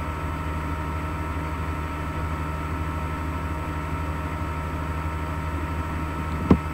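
Steady electrical hum, a low buzz with a faint hiss, with one sharp click near the end.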